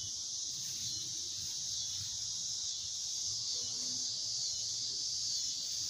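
Steady high-pitched chorus of crickets, an unbroken trill, with a faint, brief murmur of a voice a little past halfway.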